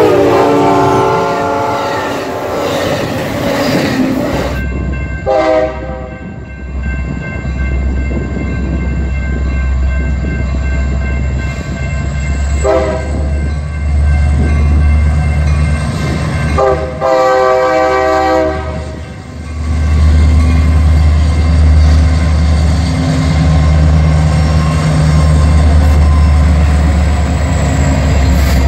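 Union Pacific diesel freight train rumbling slowly past, with several horn honks over it: short blasts about five and thirteen seconds in, and a longer one of about two seconds near the middle.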